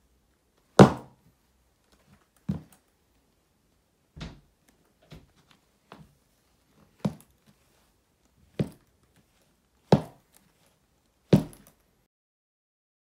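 Black platform ankle boots with thick block heels stomping on a hard floor: a series of about nine heavy thuds at uneven intervals, the first about a second in the loudest, with a few lighter heel taps between them.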